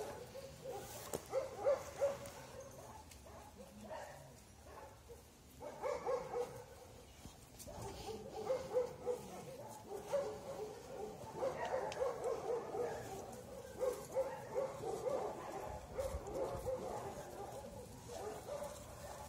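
Young wolves whining in short, repeated pitched calls as they play, on and off throughout.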